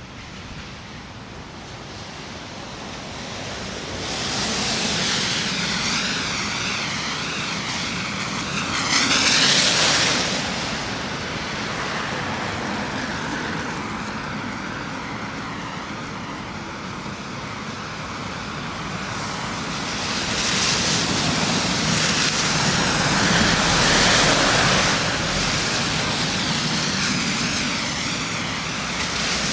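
City road traffic passing: a steady rush of tyres and engines that swells as vehicles go by, loudest about ten seconds in and again after twenty seconds.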